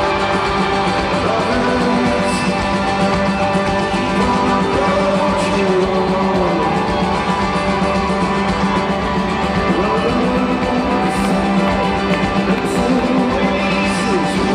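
Live rock band playing with guitars and a singer's voice, recorded from among the audience in an arena.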